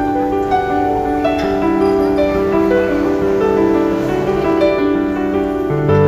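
Background music led by piano, slow sustained notes and chords.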